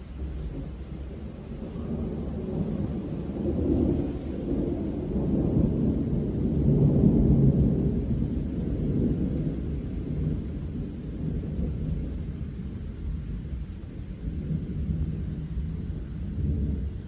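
A long roll of thunder that builds, is loudest about seven seconds in, then slowly fades with a smaller swell near the end, over falling rain.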